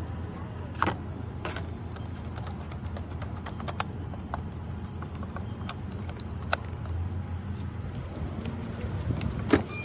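Car engine being cranked by its electric starter motor without catching, a steady churning broken by a few sharp clicks.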